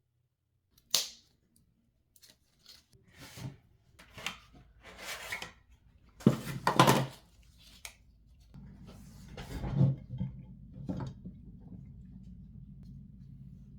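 Clicks, taps and rustling of computer parts and packaging being handled during a PC build, in short separate bursts. A steady low hum comes in about two-thirds of the way through.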